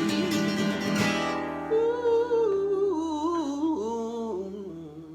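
Acoustic guitar and voice finishing a song: a chord rings out under a last drawn-out sung line that bends up and down, then the music fades away near the end.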